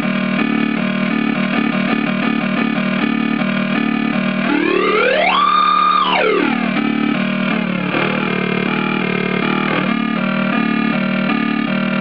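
Homemade joystick synthesizer playing a fast repeating sequence of stepping electronic notes. About four and a half seconds in, one tone sweeps steeply up in pitch, holds high for about a second, then sweeps back down.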